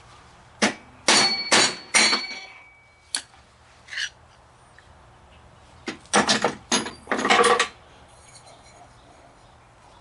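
Sharp metal knocks and clinks from lawnmower deck spindle parts being taken apart, in two bunches of several quick strikes, a few of them ringing briefly.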